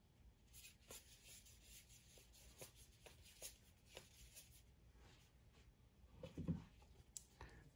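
Near silence: room tone with faint scattered ticks and rustles.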